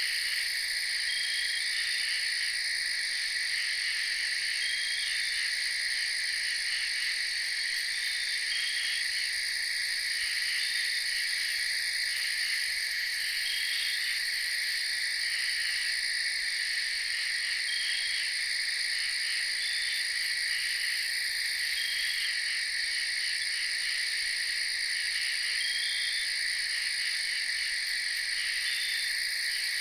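Night chorus of frogs and insects: a steady high-pitched shrill, with short calls repeating about every second or two.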